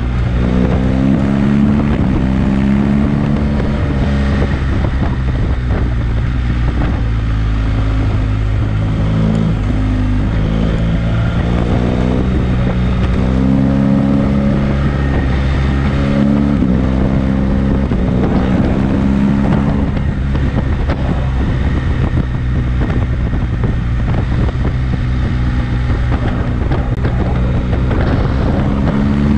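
BMW GS motorcycle's boxer-twin engine, heard onboard, its note climbing and dropping several times as the rider accelerates and backs off through the bends, with wind rushing over the microphone.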